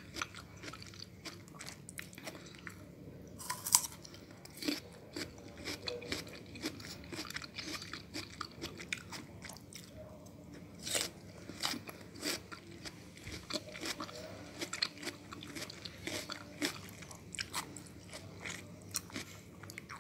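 Biting and chewing crisp Korean oriental melon (chamoe): irregular crunches throughout, with louder bites about four and eleven seconds in.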